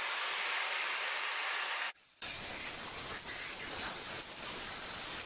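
Steady hissing noise from metalworking in the shop. It cuts out suddenly about two seconds in, then carries on with more low rumble underneath.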